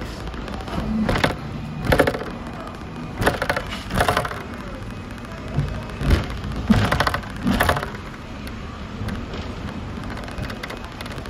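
Hong Kong double-decker tram running along its street track, its body and windows rattling in short irregular bursts about every second over a steady low rumble.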